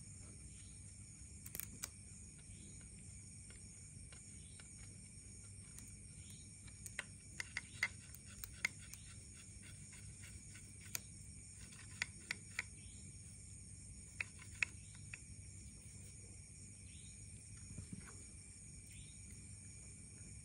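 Faint, scattered clicks and scratches of fingers and a fingernail picking at a dry bamboo stalk, in small clusters, over a steady high hum.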